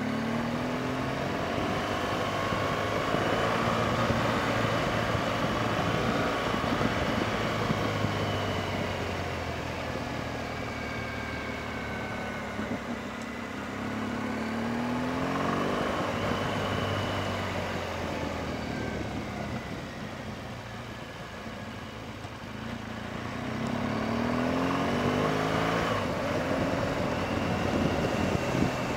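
BMW R1200GS Adventure's flat-twin boxer engine running under way. The revs rise and fall with the throttle, climbing sharply a few times: just after the start, about halfway through, and again near the end.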